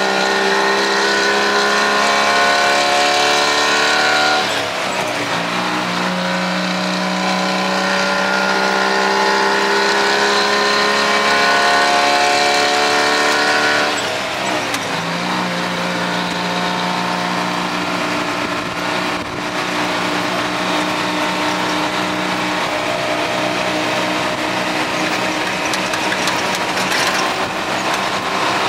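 White 4000 truck's diesel engine heard from inside the cab, pulling up through the gears. The engine note climbs steadily, drops at an upshift about four seconds in, climbs again and drops at a second upshift about fourteen seconds in, then holds fairly steady at cruising speed.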